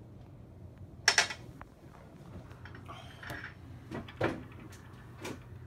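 A loud, sharp clatter about a second in, then a few lighter knocks and a brief rustle. These are handling sounds of people moving at a stone counter, with hands set down on the granite.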